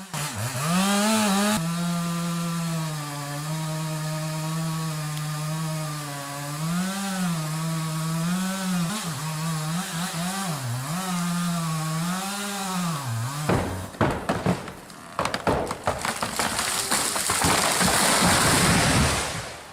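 Chainsaw cutting through a massive old pine trunk, its engine pitch wavering up and down as it works under load. About fourteen seconds in the saw stops and a run of sharp cracks follows as the trunk snaps. Then comes a long crash, growing louder, as the tree falls to the ground.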